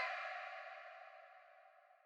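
Echoing tail of a prison alarm siren after its wail stops, fading out over about a second and a half.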